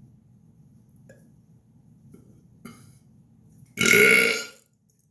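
A man's single loud burp, lasting under a second, near the end.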